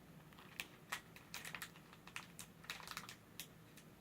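Faint, scattered clicks and crackles of a small candy package being handled and opened.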